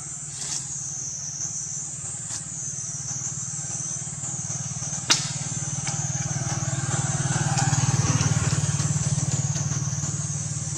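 A motor vehicle's engine, swelling to its loudest about eight seconds in and then fading, as if passing by, over a continuous wavering high drone of insects. A sharp click about five seconds in.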